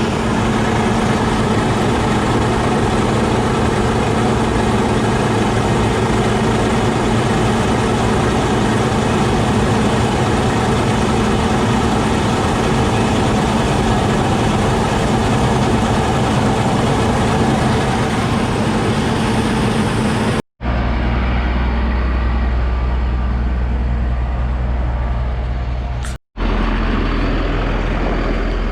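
Heavy farm-vehicle diesel engine running steadily under load, with a dense machinery rumble. About 20 seconds in, the sound cuts off abruptly twice, and each time it resumes as a deeper, smoother low engine drone.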